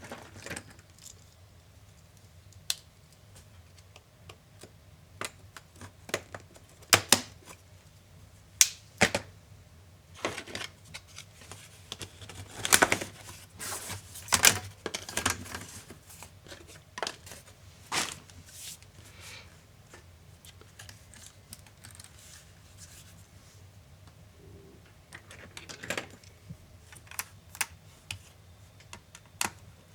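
Irregular small clicks, taps and scrapes of tools and hands on an Acer Swift SF315 laptop's plastic and metal case as it is taken apart, with a denser, louder run of scraping and clicking around the middle.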